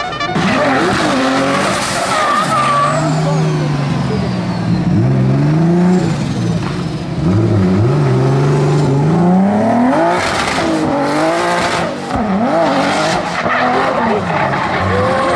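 BMW E46 drift cars' engines revving hard, the pitch climbing, holding high for a second or so and dropping again and again, over the noise of rear tyres spinning and skidding.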